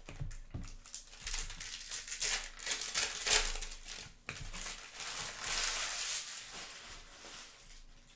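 Foil trading-card pack wrappers crinkling as packs are opened and handled, in repeated crackly bursts that die down near the end.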